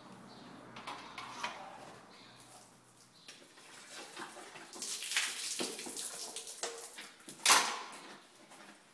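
A pony's mouth being rinsed with water squirted in from a syringe: a couple of seconds of hissing, sloshing spray from about four and a half seconds in, with one loud sudden burst of spray about seven and a half seconds in. A few small clicks and knocks come before it.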